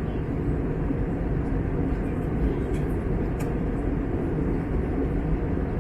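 Steady low drone of an Airbus A321neo in cruise, heard inside the cabin: engine and airflow noise without change, with a couple of faint clicks about halfway through.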